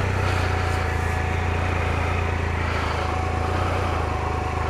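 Triumph Explorer's three-cylinder engine running steadily at low revs, its pitch holding level with no revving.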